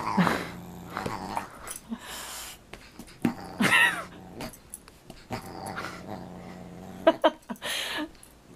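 Dog growling in a play fight with a cat batting at it, a low steady growl broken by a few louder growling calls, the strongest at about four seconds in.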